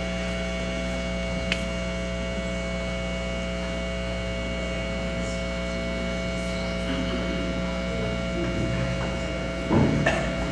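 Steady electrical mains hum from the sound system, with a single sharp click about a second and a half in and a few knocks near the end.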